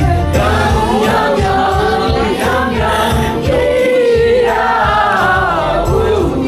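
Several voices singing together over instrumental accompaniment.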